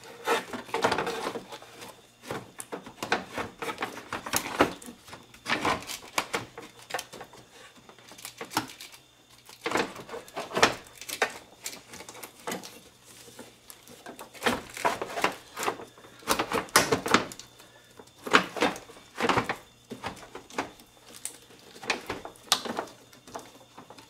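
Plastic radiator fan shroud being worked down into an engine bay: irregular knocks, clacks and scraping as it rubs against the radiator, hoses and wiring.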